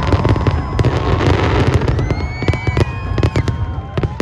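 Fireworks display going off: rapid bangs and crackling over a continuous low rumble, with whistling tones gliding upward from about halfway through.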